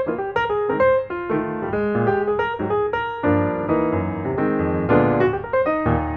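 Background music: a melody of quick, separately struck notes over chords, playing steadily.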